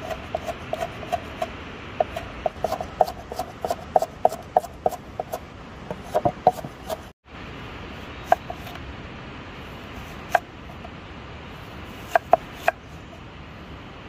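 A cleaver knocking on a wooden chopping board, chopping green capsicum in quick, regular strokes, about three a second. After a short break a few slower single strokes come as the blade slices an onion. A steady hiss runs underneath.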